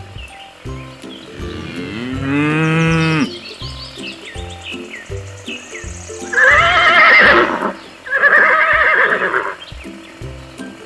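Background music with a steady beat, overlaid with farm-animal call sound effects: one long call that glides up and holds about two seconds in, then two loud wavering calls about six and eight seconds in.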